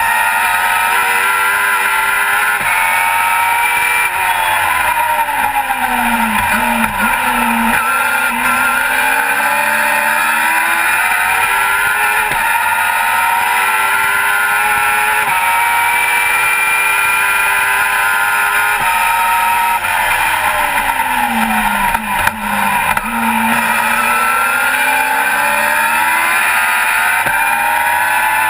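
Onboard sound of a Formula Vee race car's air-cooled Volkswagen flat-four engine at racing speed, over a steady rushing noise. Twice the revs fall away as the car brakes for a corner, then climb back through the gears, with brief breaks at each upshift.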